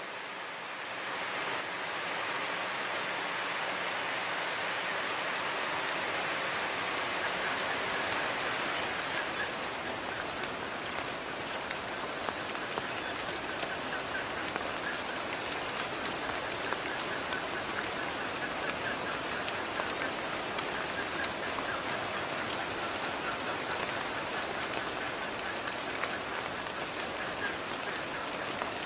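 Steady rain falling, with many scattered drops ticking; it fades in over the first couple of seconds.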